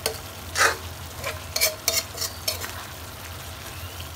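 Roasted duck pieces being stir-fried with red curry paste in a pan: a steady sizzle, with a spatula scraping and knocking against the pan several times in the first two and a half seconds.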